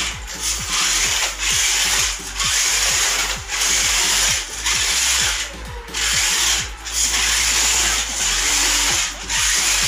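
Electric drive motor and gears of a remote-controlled miniature jeep whirring in short spurts, about one a second, as it is driven across the floor.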